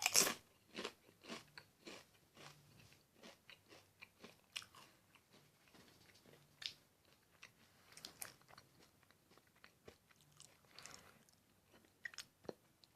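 A Doritos tortilla chip bitten with a loud crunch at the start, then chewed with faint, irregular crunching.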